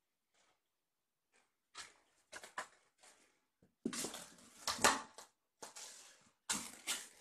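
Two kittens wrestling in a fabric cat bed: a run of irregular rustling and scratching scuffles, loudest about four to five seconds in.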